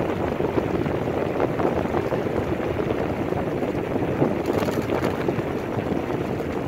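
Steady rush of wind on the microphone mixed with tyre noise from a bicycle rolling fast downhill on a tarmac lane.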